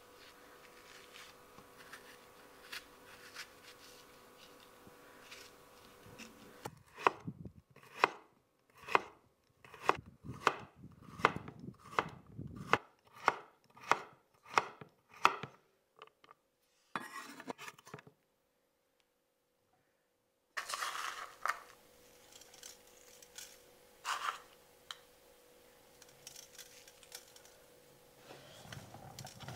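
A spoon scraping the pith and seeds out of a halved bitter melon, then a kitchen knife slicing the bitter melon into thin rings on a wooden cutting board, about two cuts a second. Then salt is sprinkled over the slices in a stainless steel bowl, over a faint steady hum.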